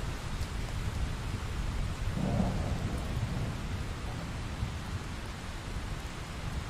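Thunderstorm sound effect: steady rain with low rolling thunder, one swell of rumble a little over two seconds in, then the storm easing slightly.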